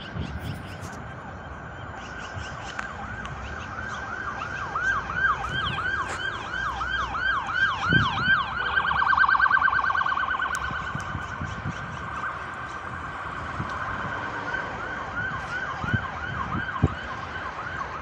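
Emergency vehicle siren sounding in quick repeating pitch sweeps, about three a second. Around the middle it switches to a faster warble, where it is loudest, then goes back to sweeps.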